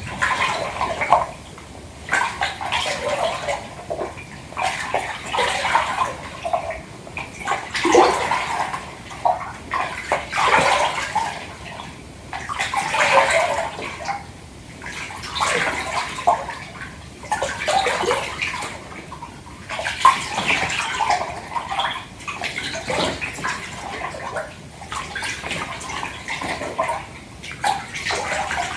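Bath water sloshing in a tub, in uneven swells of splashing that rise and fall every second or two.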